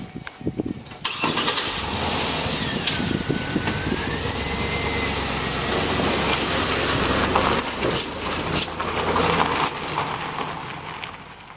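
A farm machine's engine comes in suddenly about a second in and runs loudly and steadily, with a whine that dips and rises again in pitch, then fades out near the end.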